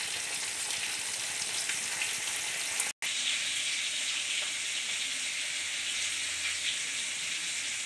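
Steady sizzling of prawns simmering in mustard gravy and oil in a kadai. The sound cuts out for a split second about three seconds in, then carries on the same.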